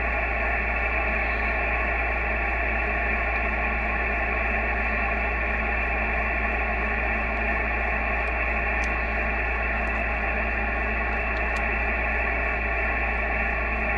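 ICOM IC-7300 HF transceiver receiving on lower sideband in the 80-metre band: a steady hiss of band noise from its speaker, with a low hum under it.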